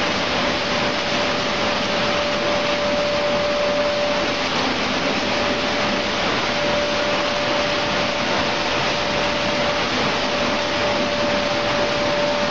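Raisin processing line machinery running steadily: a loud, even mechanical hiss with a steady mid-pitched whine that drops out briefly about halfway.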